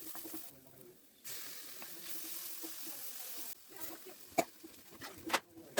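Chicken noodles sizzling as they fry in a hot pan. Near the end come a few sharp knocks.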